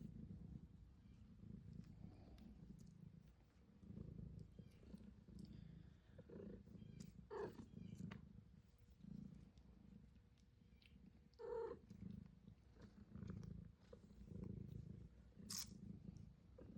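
Kittens purring: a faint, low rumble that swells and fades with their breathing. There are two brief higher squeaks, about halfway and two-thirds of the way through, and one sharp click near the end.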